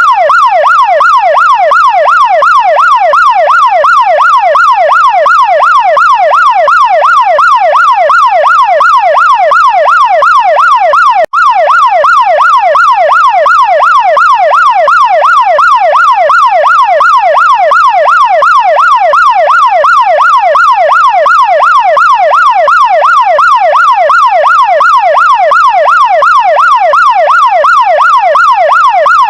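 Chinese fire truck's electronic siren on a fast yelp, its pitch sweeping up and down several times a second in an unbroken, even rhythm, with a momentary dropout about eleven seconds in.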